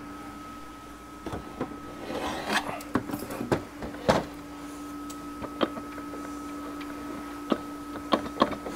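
Scattered clinks and knocks from the parts inside a 4L80E automatic transmission as they are worked and turned by hand, the loudest knock about four seconds in, over a steady hum. The unit has been ruined by heat and a drum is stuck in the case.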